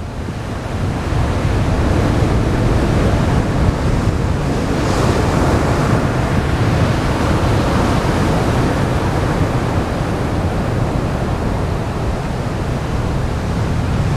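Heavy storm surf breaking and washing onto the beach in typhoon seas, the roar swelling over the first couple of seconds. Strong wind buffets the microphone throughout.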